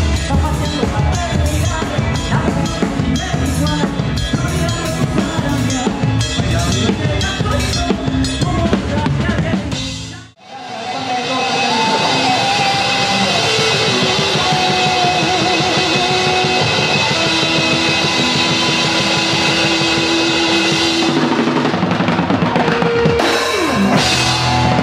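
A live band playing, with a drum kit driving the beat, stops abruptly about ten seconds in. A large outdoor crowd then cheers and claps.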